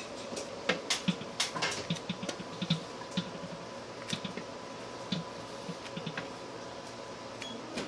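Irregular light clicks and knocks as crumbly pasta dough is scooped by gloved hand from a stainless steel mixer bowl into another steel bowl, dough and fingers tapping the metal. The clicks come thick over the first three seconds and thin out after, over a faint steady hum.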